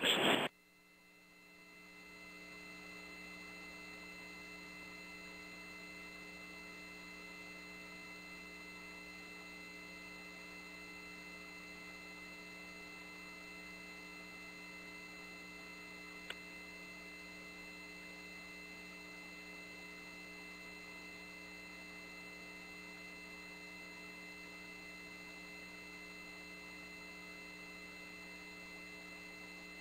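Steady electrical hum with several constant tones and faint hiss on the launch-control countdown audio feed, with one faint click about halfway through.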